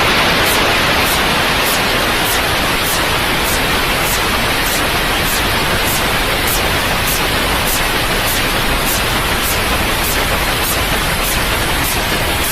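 Steady white noise, a constant hiss, of the kind played to soothe colicky babies, with a faint high ticking about twice a second.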